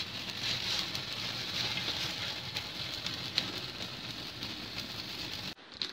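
Water at a rolling boil in a steel pot on a gas burner, cooking a block of instant noodles: a steady bubbling and crackling that cuts off suddenly near the end.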